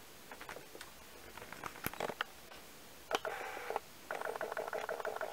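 A few light clicks, then a short whir and, from about four seconds in, a rapid even ticking whir at roughly a dozen ticks a second. This is a camera lens's autofocus motor hunting for focus.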